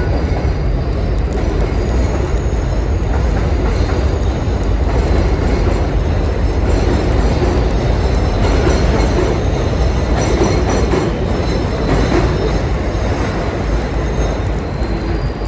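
Elevated subway train running on the steel el structure overhead, a loud steady noise throughout, with faint high wheel squeal in the middle.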